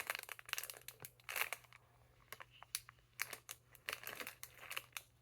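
Quiet, irregular crinkling and rustling of small plastic packets as minifigures are handled and unwrapped.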